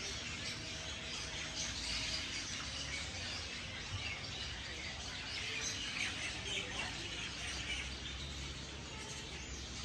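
Birds chirping and calling, with a steady low rumble underneath.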